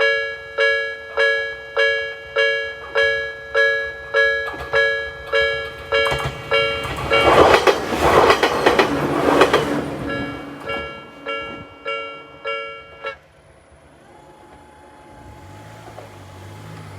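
Japanese level-crossing alarm bell clanging steadily, about one and a half strikes a second, while a Jōmō Electric Railway train rushes and clatters through the crossing from about six to ten seconds in. The bell cuts off suddenly about two-thirds of the way through, and a low rumble builds near the end.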